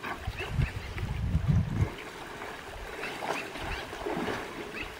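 River water splashing and sloshing around a brown bear as it wades and feeds in the shallows, with irregular low wind rumble on the microphone during the first couple of seconds.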